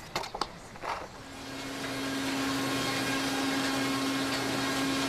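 Pencil-factory machinery running with a steady hum and a constant low tone, fading in about a second in. Before it, a few short scratchy clicks.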